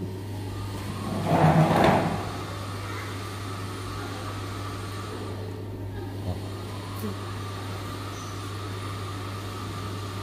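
Ultrasonic welding machine standing by with a steady low hum. About a second and a half in, a short louder burst of noise, then a couple of faint clicks.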